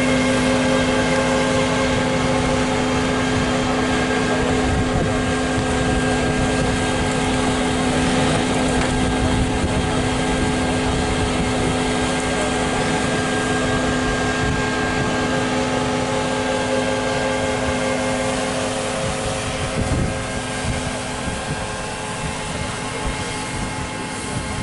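Engine-driven blower of a jeep-mounted pesticide mist sprayer running steadily, a constant drone at one unchanging pitch, mixed with the jeep driving slowly over rough ground. A few light knocks come near the end.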